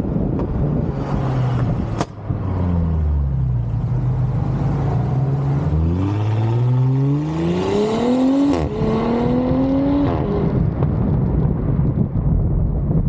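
Audi SQ5's V6 engine accelerating, its pitch rising through a gear and then dropping abruptly at an upshift about eight and a half seconds in, where there is a short sharp sound, before rising again and easing off. There is a brief sharp click about two seconds in, and wind noise throughout.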